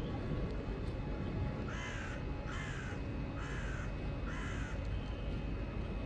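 A crow cawing four times in an even series, starting about two seconds in, over a steady low rumble.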